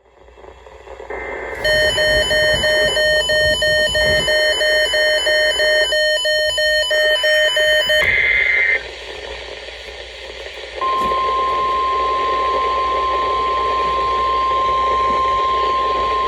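NOAA Weather Radio weekly test coming through a weather radio receiver: a brief data screech, then several seconds of the receiver's rapid electronic alert beeping, another short screech and a moment of static. About eleven seconds in, the steady single-pitch warning alarm tone (the 1050 Hz NOAA weather radio alert tone) starts over radio hiss and holds.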